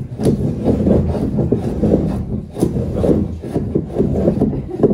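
A curved two-handled blade scraping and shaving the inside of a wooden dugout canoe hull in quick, irregular strokes.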